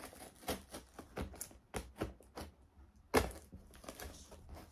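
Knife slitting the packing tape and cardboard of a parcel: a series of irregular sharp clicks and cracks, the loudest about three seconds in.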